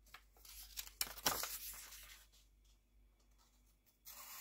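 Paper rustling and a few sharp handling noises as a sheet of paper is picked up. Near the end a folding knife's plain edge starts slicing through the paper with a steady hiss, as a sharpness test.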